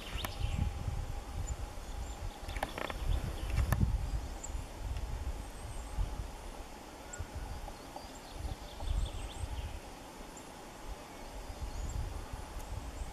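Outdoor ambience without speech: an uneven low rumble, two knocks about three and four seconds in, and faint, very high, thin bird calls scattered through.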